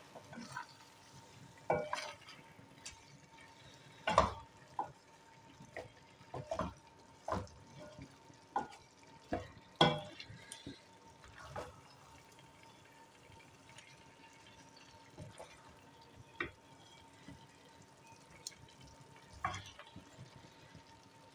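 A spatula scraping and knocking against an aluminium cooking pot as thick chicken karahi gravy is stirred. The strokes come irregularly every second or so, are loudest about four and ten seconds in, and grow sparser in the second half.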